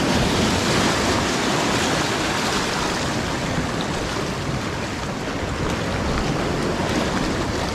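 Sea surf washing and breaking over shore rocks: a steady rush of water that eases a little midway and swells again near the end.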